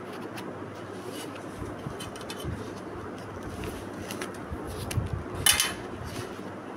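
Rolled plastic shelf-liner sheet handled in the hands: faint rustling and small ticks, with one short, louder rustle about five and a half seconds in.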